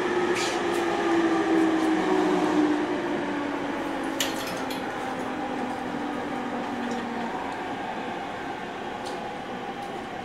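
Running sound of a 209 series electric train heard from inside the car, with the Mitsubishi GTO inverter's whine slowly falling in pitch as the train slows. There is a sharp click about four seconds in.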